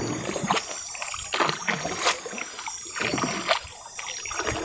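Small open boat being paddled by hand: splashes of the paddle in the water and knocks against the hull, at irregular intervals about a second apart.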